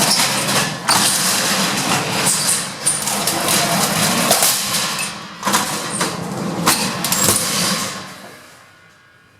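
Service lift in use: a steady mechanical rumble with several sharp clicks and clunks, dying away about eight seconds in.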